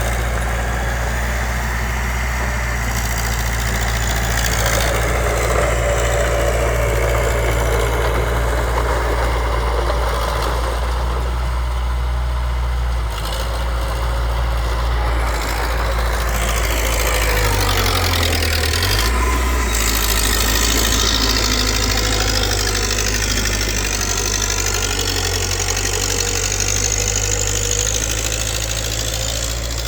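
Heavy machine's diesel engine running steadily and loudly, its note shifting a little about two-thirds of the way in.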